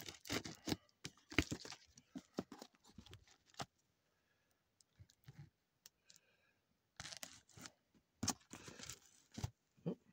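A box cutter slitting fibre-reinforced packing tape on a cardboard box, with the tape tearing and the cardboard crackling in quick, scratchy strokes. The cutting comes in two spells, with a pause of about three seconds in the middle.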